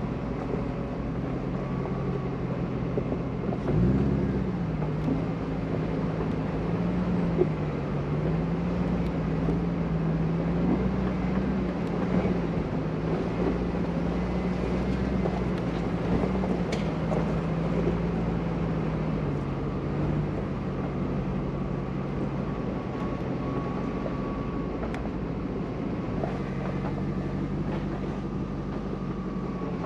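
Mercedes G-Class engine running while the truck drives slowly along a rough dirt track, with tyre and track noise underneath. About four seconds in the engine revs up, then holds a fairly steady speed with small rises and falls, easing off a little around twenty seconds in.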